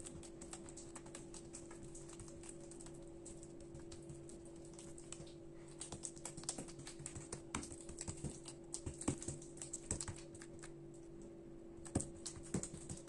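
Fingers and palm pressing and patting oily, poppy-seed-paste-covered dough flat against the tabletop, making an irregular run of small sticky clicks and taps. They grow busier midway and include a couple of louder taps near the end, over a faint steady hum.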